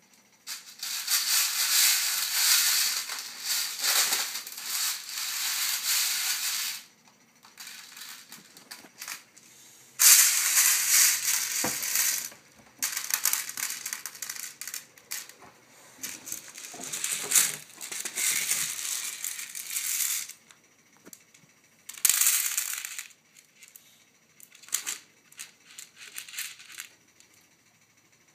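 Dried popcorn kernels rattling and pouring in a metal baking tray as small hands scoop and stir through them, in several long spells of gritty rattling with short pauses between.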